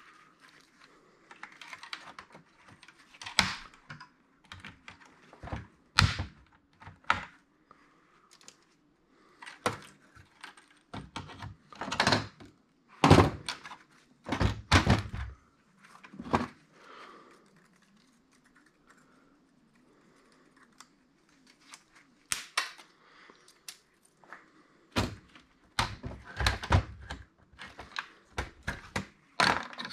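Plastic and metal parts of a touchscreen POS terminal knocking and clicking as it is taken apart by hand: irregular thunks and clicks, a quieter stretch in the middle, and a run of rapid clicks near the end.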